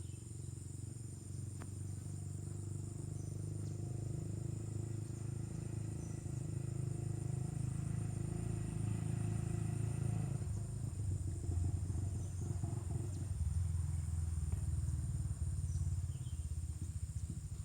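Steady buzzing of insects such as crickets or cicadas, over a louder low rumble that slowly grows louder and turns uneven about halfway through.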